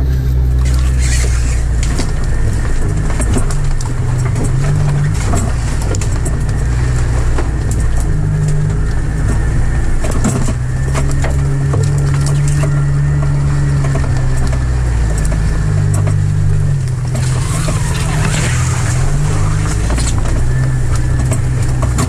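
1997 Jeep TJ engine working at low revs as the Jeep crawls up a steep, rough dirt trail, heard from inside the cab, its pitch shifting now and then with the throttle. Knocks and rattles come throughout, with a scraping hiss about three quarters of the way through.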